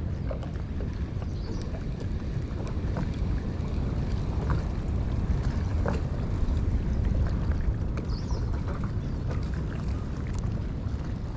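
Wind buffeting the microphone as a steady low rumble, with a few faint ticks over it.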